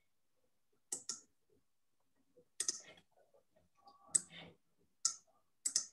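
Sharp computer mouse clicks: a quick double click about a second in, single clicks near the middle, and another quick pair near the end.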